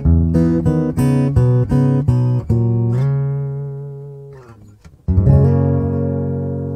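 Cole Clark acoustic guitar strummed in quick, rhythmic chord strokes, then a held chord fading away. After a short gap, about five seconds in, one more chord is struck and left to ring out, slowly fading.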